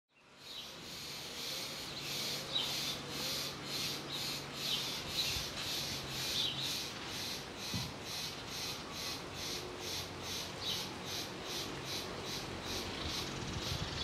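Insects chirping in a steady pulse, about three chirps a second, with short bird calls now and then. The sound fades in at the start.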